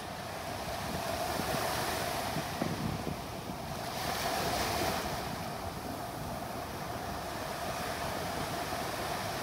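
Shore surf breaking and washing up the beach, swelling as waves run in about one and a half seconds in and again about four seconds in, with wind buffeting the microphone.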